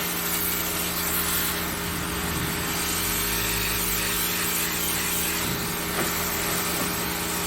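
Pressure washer running: a steady motor drone under the constant hiss of the high-pressure water spray.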